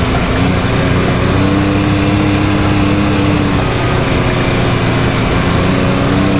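Can-Am Maverick X3 side-by-side's turbocharged three-cylinder engine running steadily on the trail, a loud constant drone over a noisy hiss. One tone in the drone swells from about a second in to about halfway through, then settles back.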